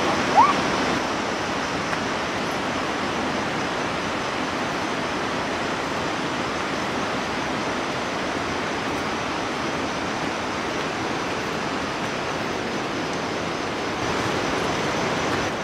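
Steady rushing noise without a break. About half a second in, one short chirp rising in pitch.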